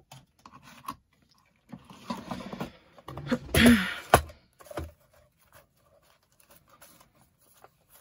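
Rustling and handling, then a wooden box scraped across the desk and set down with a sharp knock about four seconds in, followed by light clicks and taps.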